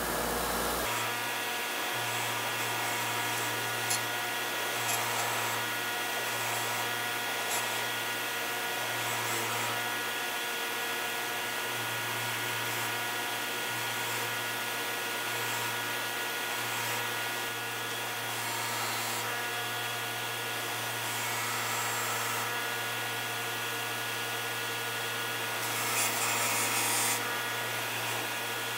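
WEN bench grinder motor running steadily, humming and whining, while small metal parts are pressed against the spinning wheel, giving a continuous rasping scrape with a few sharp ticks. The scraping grows louder for a second or so near the end.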